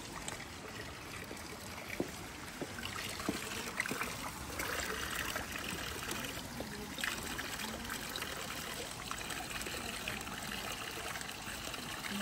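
Spring water trickling steadily from a fountain spout into a stone basin, with a few sharp taps in the first few seconds.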